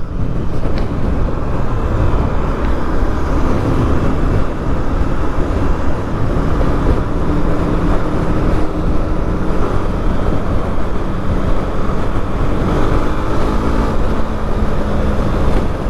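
Honda Twister motorcycle's single-cylinder engine running while riding in traffic, mixed with road and wind noise. The engine note rises briefly a couple of times.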